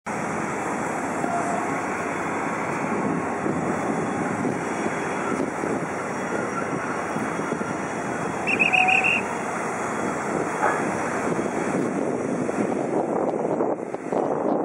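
Steady jet aircraft noise, with a short run of about five quick high-pitched beeps a little past halfway.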